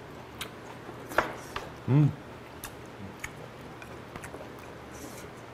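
Close-up eating sounds: chopsticks clicking sharply against a bowl several times while a man picks at and chews fish from a spicy fish stew, with one short hum of the voice about two seconds in.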